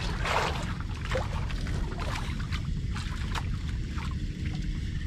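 Water sloshing and splashing against the hull of a small wooden outrigger fishing boat, with a brief louder splash just after the start, over a steady low rumble.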